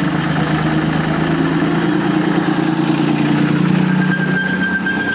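Engine of a small narrow-gauge locomotive running steadily as it draws up and passes close by, with a thin whine coming in near the end.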